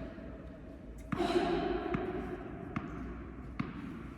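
A tennis ball knocking sharply on the court three times, under a second apart, like a ball bounced before a serve. A short voiced sound, like a sigh or exclamation, comes about a second in.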